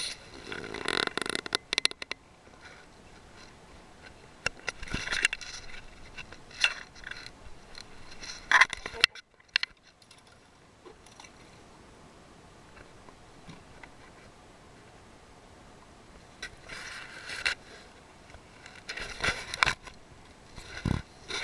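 Handling noise from a camera being fumbled: rubbing and scraping over the microphone with sharp knocks, in irregular bursts with quieter stretches between.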